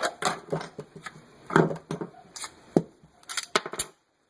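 Handling of a nylon sling bag at its holster pocket: rustling with a series of light knocks and clicks. The loudest knock comes about a second and a half in, and the sounds stop just before the end.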